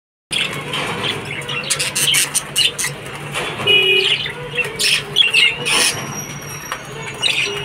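Budgerigars chirping and chattering in quick, short, high calls, over a steady low hum.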